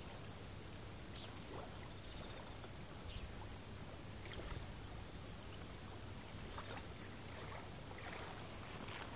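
Faint riverside ambience: a steady hiss with a thin high tone running through it, broken by a few soft rustles and ticks.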